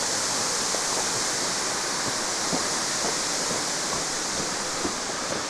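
Steady rushing roar of a very tall waterfall's water crashing down, with a few faint small knocks over it.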